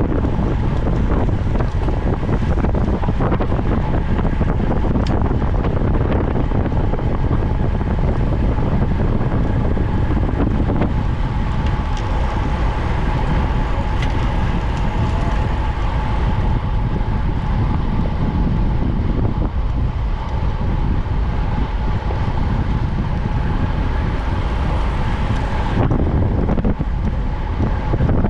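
Wind rushing and buffeting over the microphone of an onboard camera on a racing bicycle at speed. A steady higher hum runs under the wind and cuts off suddenly near the end.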